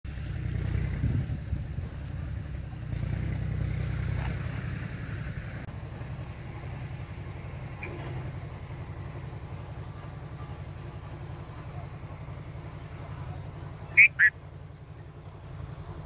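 Two short, sharp calls from a bulbul at its nest with chicks, close together about two seconds before the end, over a steady low background rumble.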